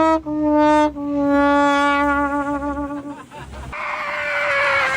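Descending 'sad trombone' comedy sound effect: stepwise falling brass notes, the last one held for about two seconds with a wobbling pitch. In the last second or so a harsh, rasping high cry comes in.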